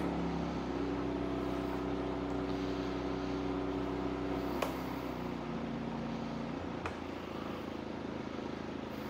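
MaxPeedingRods MXR4000GT inverter generator running, its engine speed dropping in steps as the heater load is turned down. A click comes about four and a half seconds in and another near seven seconds, each followed by a further drop in pitch.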